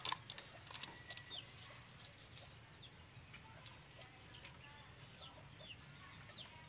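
Faint short, high chirps of birds, with a few sharp clicks in the first second or two.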